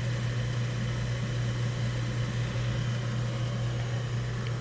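Dayton 20-inch Tradesman 3Z919A floor drill press running unloaded, its 3/4 hp electric motor and belt-driven spindle giving a steady, even hum.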